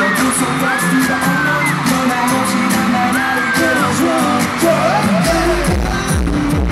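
Live pop song played loud through an arena sound system, with singing and shrill screams from the audience over it. About five seconds in, a heavy bass beat comes in.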